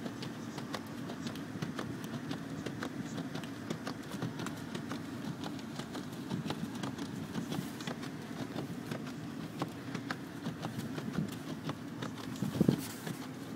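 Car driving through snow, heard from inside the cabin: a steady low rumble of engine and tyres, with many faint irregular clicks and crackles. A single thump comes near the end.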